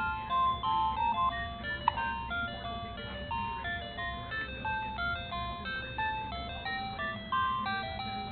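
A simple electronic tune of plain beeping notes stepping up and down, like a musical baby toy's chime melody. One short sharp click comes about two seconds in.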